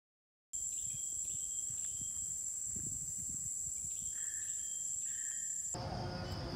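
Silent for the first half second, then a steady high-pitched drone of insects with short, repeated bird chirps over it. About a second before the end it cuts off abruptly and a different mix of sounds takes over.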